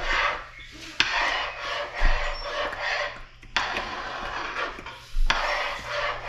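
A spoon scraping and stirring through a pot of thickening maja blanca (coconut corn pudding), in repeated rasping strokes with a few sharp knocks against the pot.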